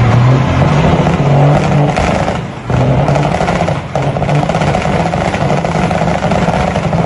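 Semi truck's diesel engine revving hard for a burnout. The revs drop briefly about two and a half seconds in and again at four seconds, then pick straight back up.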